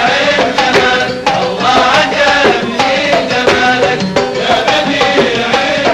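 Traditional Kuwaiti sawt music: a male chorus singing over rhythmic hand clapping and percussion, with sharp, even strokes throughout.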